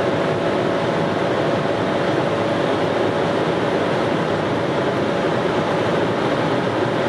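BMW X3 xDrive35i's turbocharged straight-six held at about 6,000 rpm in sixth gear at top speed, around 259 km/h, heard from inside the cabin. The engine's steady note sits under a loud, even rush of wind and road noise, with no change in pitch or level.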